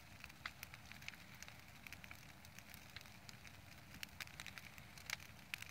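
Brush pile of dry branches and twigs burning, crackling with irregular sharp pops over a low steady rumble. A few louder pops come about four to five seconds in.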